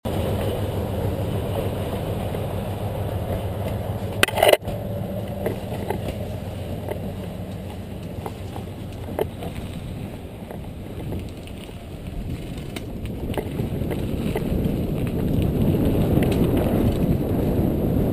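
Mountain bike being ridden along a dirt trail: a steady rumble of tyres and wind with scattered rattles and clicks from the bike, and one brief loud knock about four seconds in. The rumble grows louder and rougher near the end as the trail turns to mud and puddles.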